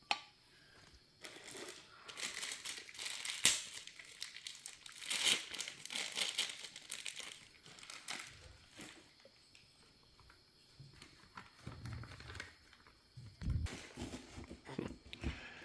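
A dog chewing and tearing at a cardboard box: irregular crinkling and ripping, busiest in the first half, with a few dull low thumps later on.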